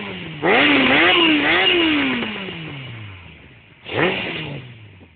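Kawasaki ZX-9R inline-four engine being revved while standing. The throttle is blipped sharply about half a second in, the revs waver high and then fall away slowly, and a second short blip about four seconds in drops back toward idle.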